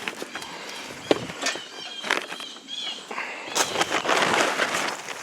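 Footsteps and a few sharp knocks on the ground outdoors, with birds chirping in short repeated calls. From about three seconds in, a louder scraping rustle lasts for over a second.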